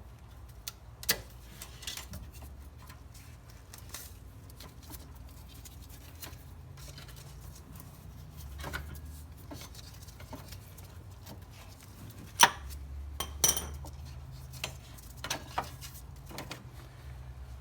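Scattered metallic clinks and knocks of hand tools and engine-bay parts as the accessory belt is worked off the pulleys after its tensioner is released, with the sharpest knock about twelve seconds in. A faint low hum runs underneath.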